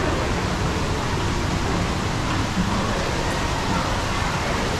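Steady, even rushing background noise of an indoor shopping mall's ambience.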